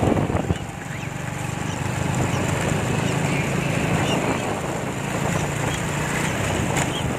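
A small vehicle engine running steadily, heard from on board while riding.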